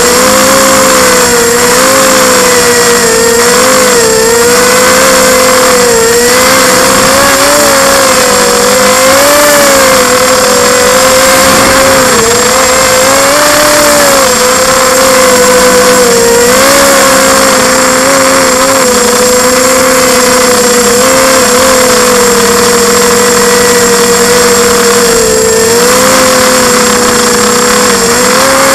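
Quadcopter's brushless motors and propellers whining loudly and continuously, close to the onboard camera's microphone, the pitch wavering up and down as the throttle changes in flight.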